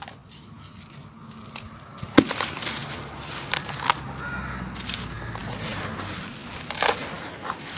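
Charcoal sand biscuits cracking and crumbling in water: scattered sharp snaps, the loudest about two seconds in, over a gritty crackle.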